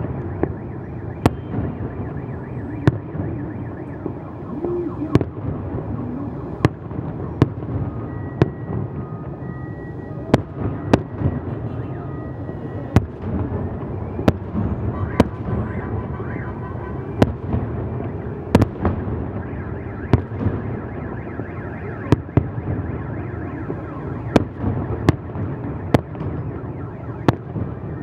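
Aerial firework shells bursting, a sharp bang about once a second at irregular spacing, over a continuous low rumble.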